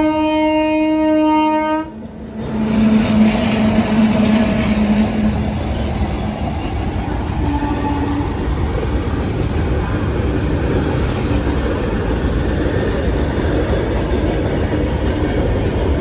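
A train horn sounds one steady tone and cuts off sharply about two seconds in. It is followed by the steady rumble and rattle of a moving train.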